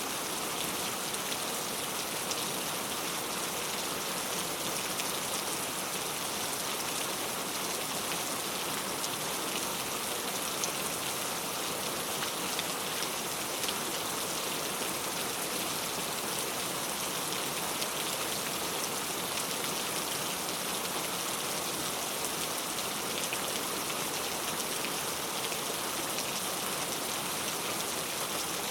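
Heavy rain falling steadily, a dense hiss of drops hitting a surface with fine individual drop ticks throughout.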